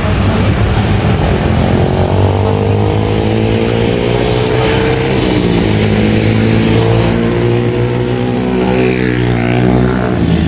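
Road traffic: motor vehicle engines running steadily, with engine pitch rising and then falling as vehicles pass, twice.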